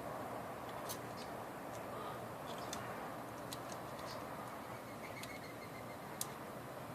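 Faint, scattered light clicks and ticks, as of small typewriter mechanism parts being handled during reassembly, over a steady low background hum.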